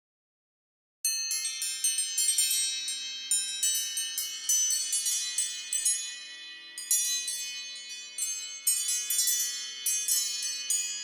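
An iPhone ringtone of wind-chime-like tones: after about a second of silence, a quick, irregular cascade of high, ringing bell notes begins over a few faint, lower held notes.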